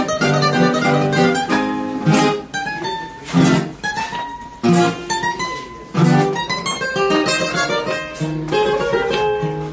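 Acoustic guitars playing an instrumental passage of a bolero, with a picked single-note melody over repeated strummed chords and no singing.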